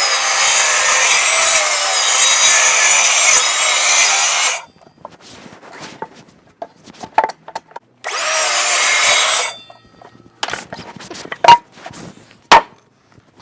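Milwaukee mitre saw cutting through timber twice: a long cut of about four and a half seconds, then a shorter one of about a second and a half. Several knocks of wood pieces follow near the end, two of them sharp.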